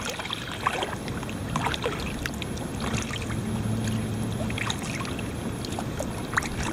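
Kayak paddling: a double-bladed paddle dipping and pulling through river water, with scattered drips, small splashes and light ticks over a steady wash of moving water. A low steady hum comes in about halfway through and fades a second or so later.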